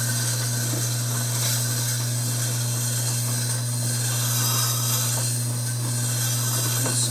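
Budget Tormek-style sharpening machine running with a steady motor hum, while the steel iron of a No. 5 bench plane is held against the turning wheel with a continuous scratchy grinding. The blade is being ground to re-set its bevel angle.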